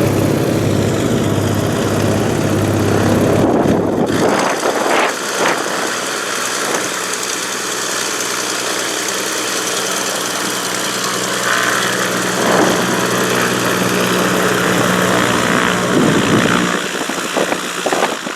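Light propeller aircraft engine running loud and steady; about four seconds in its low rumble drops away, leaving a higher, steadier engine tone.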